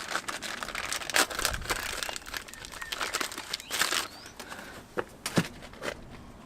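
Hands-on workshop handling noises: crinkling and rustling, with scattered clicks and knocks and a louder rustle just before the middle.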